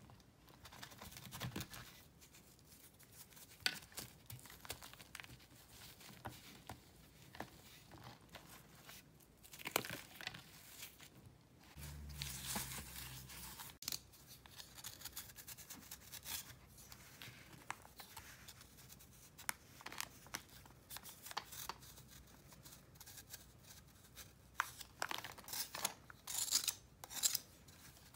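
Dry, crunchy pressed powder crackling as it is crumbled by hand and the whole block is handled, with faint crunches and scrapes. There is a low thump a little before halfway, and the crackling grows busier near the end as the block is worked.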